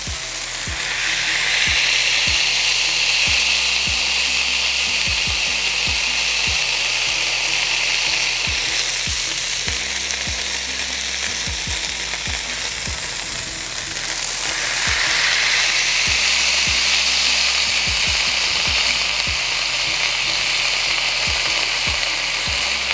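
Beef smash burger patties sizzling on a hot Blackstone flat-top griddle as they are pressed flat. The sizzle swells about a second in and again around fifteen seconds in, with occasional light knocks.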